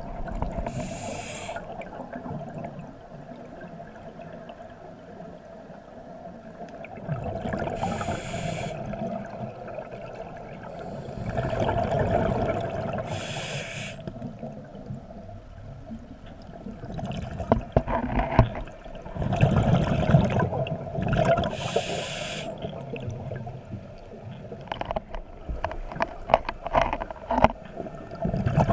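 Scuba diver's breathing heard underwater through the camera housing: a hissing rush from the regulator on each inhale and rumbling bubble bursts on each exhale, a breath every several seconds. A faint steady hum runs underneath, and a run of sharp clicks comes near the end.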